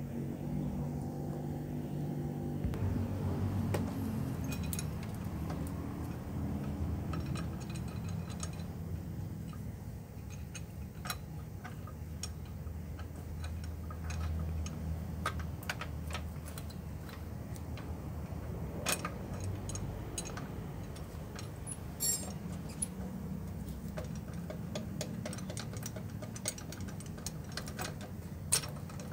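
Scattered light metallic clicks and clinks of parts and hand tools being handled as the alternator mounting is fitted and tightened on a new fan belt, over a low steady background hum.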